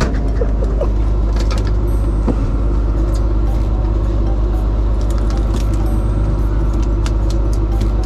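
Fishing boat's engine running with a steady low drone, with scattered light clicks and taps over it.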